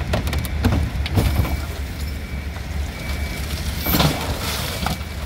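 Wrecked Ford Expedition being tipped back upright, with metal clanks and knocks and a heavy crash about four seconds in as it drops onto its wheels. Under it runs a steady low rumble, with an intermittent high beeping.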